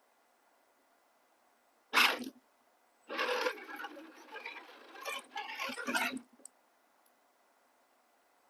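Redcat Scout RC crawler's small electric motor and gear drivetrain whirring in short bursts of throttle. There is one sharp burst about two seconds in, then about three seconds of uneven whirring.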